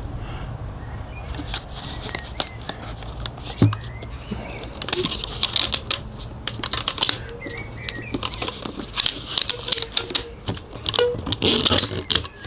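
Elastic bands being stretched and snapped around a sheet of wet balsa on a tube: a run of sharp clicks and snaps that grows busier from about halfway through.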